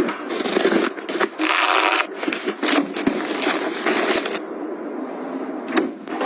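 Household items being handled: uneven scraping and rubbing with a few light knocks.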